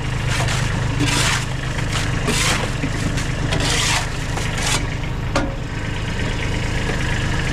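An engine idling steadily under about five rough scraping strokes, like a flat shovel scraped over a wooden trailer floor, spaced about a second apart in the first five seconds, then a single sharp click.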